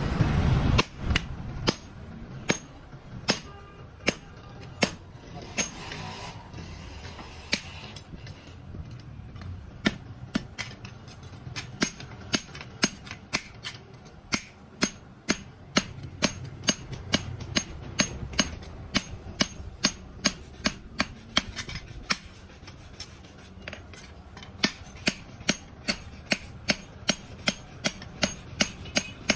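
A hammer striking steel on an anvil in a steady run of sharp, ringing blows, about two to three a second, with a couple of short pauses.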